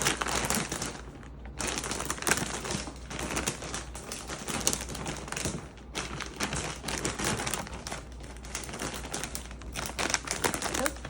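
Plastic vacuum storage bag crinkling and a fleece blanket rustling as the blanket is stuffed into the bag by hand, in irregular bursts with two short pauses.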